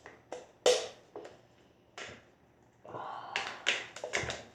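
Homemade slime made with baby powder and baby oil being squeezed and worked in the hands, giving sharp wet pops and crackles: a few single pops, then a quicker run of them near the end.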